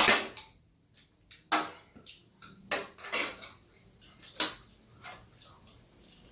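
Metal chopsticks and spoons clinking and scraping against bowls during a meal, a handful of short separate clicks and taps, the loudest one right at the start.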